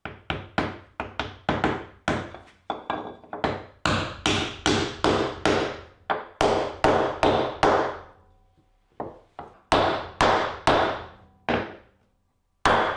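Claw hammer striking a scrap wood block laid over a glued cherry bowtie key, driving it down into its pocket in a hickory slab: a steady run of sharp wooden knocks, about three a second. It pauses around eight seconds in, then a few more strikes follow.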